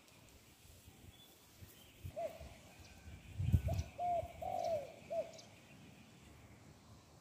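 A spotted dove, a caged decoy bird, cooing one phrase of about five coos over some three seconds, one note near the end held longer than the rest. A brief low thump comes about three and a half seconds in.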